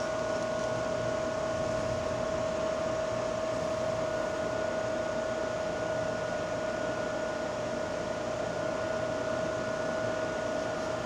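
A steady machine whir: an even hiss with a constant high hum over it, like a running fan, holding the same level throughout.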